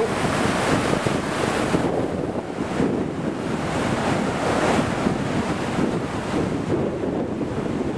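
Floodwater pouring out of a dam and churning into whitewater below: a steady, loud rush of turbulent water.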